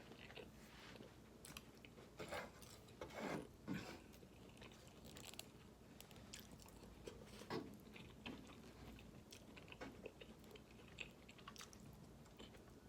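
A person chewing food, faint, with scattered wet mouth smacks and clicks; a few louder ones come between about two and four seconds in and again near the middle.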